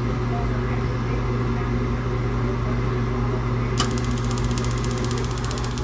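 Rheem furnace running with a steady hum; about four seconds in, a sharp click and then a rapid, even ticking start: the spark ignitor sparking to light the burner.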